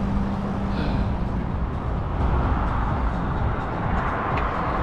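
Steady rumble of an e-bike ride: wind on the microphone and tyre noise, with road traffic running underneath.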